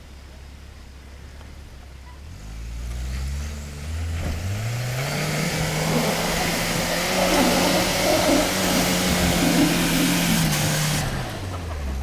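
1986 Toyota pickup's turbocharged four-cylinder engine revving up under load as the truck climbs out of a snowy creek. The revs rise in steps from about two seconds in and hold high for several seconds under a loud rushing noise from the tires in the snow, then drop back toward idle near the end.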